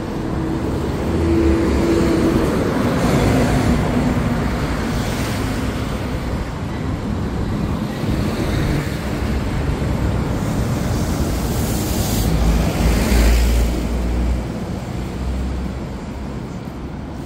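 City street traffic: vehicle engines and tyres running by in a steady wash of noise, with a louder vehicle passing about twelve to fourteen seconds in.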